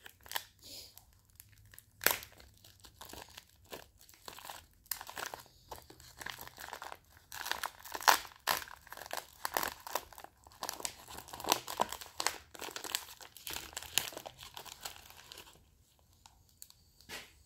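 Foil-lined pouch of Half and Half pipe tobacco being opened and unfolded by hand, crinkling with many irregular crackles. The crinkling dies down about two seconds before the end.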